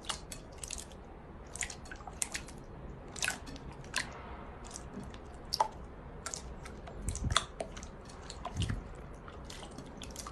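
Slime being squeezed and pressed by hand: an irregular string of sticky clicks and small wet pops, with two soft low thuds in the second half.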